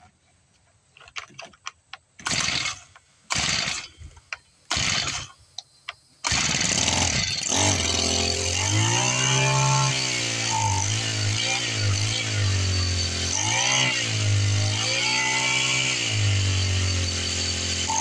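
Husqvarna 324L four-stroke string trimmer being pull-started: a few clicks, three short pulls of the recoil starter about a second apart, then the engine catches about six seconds in and keeps running, its pitch rising and falling as the throttle is opened and let off.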